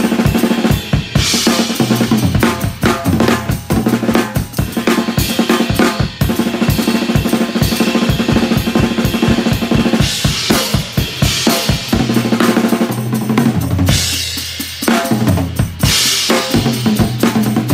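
DW Performance Series acoustic drum kit played hard and fast: a dense run of bass drum and snare hits, with Meinl cymbal crashes about a second in, around ten seconds in and again around sixteen seconds in.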